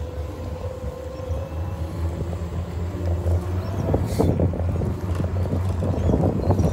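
Electric scooter riding along a concrete footpath: a steady low hum from the wheels and motor with light rattling, and a brief louder rush about four seconds in.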